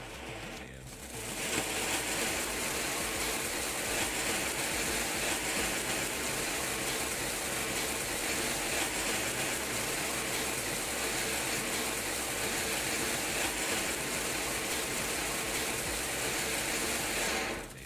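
Cylindrical fireworks fountain (Golden Daffodil) spraying sparks: a steady hissing gush with a fine crackle in it, building up about a second in and cutting off near the end.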